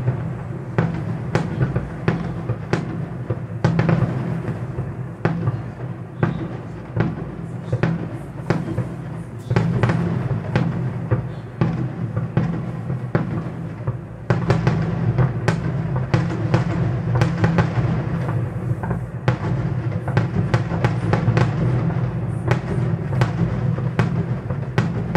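Fireworks display: aerial shells bursting in sharp bangs, often several a second, over music with held low tones playing throughout.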